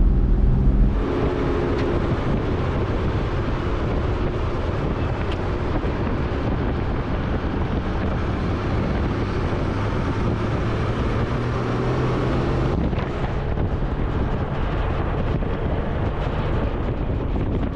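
Toyota LandCruiser Troop Carrier driving, its engine drone under a steady rush of road and wind noise, with wind buffeting the microphone. The engine drone is louder for about the first second, then the sound settles into the steadier rush.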